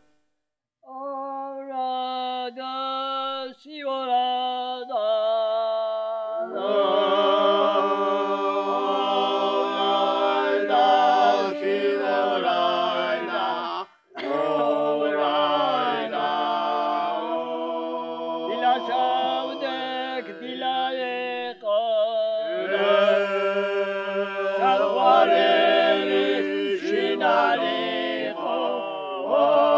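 Unaccompanied Georgian folk polyphony sung by a small group of elderly men. One voice sings alone in short phrases at first, the others join in close harmony about six seconds in, and after a brief break about fourteen seconds in they all sing on together.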